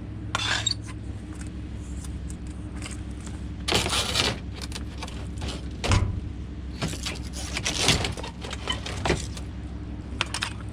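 Scrap aluminum pieces and a screen clanking, rattling and scraping as they are handled, over a vehicle engine idling steadily.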